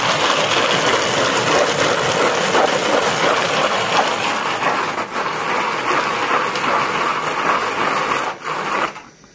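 Hand-cranked plastic food chopper spun fast, its blades churning and rattling through dry crumbly food in the bowl. The steady noise stops abruptly near the end.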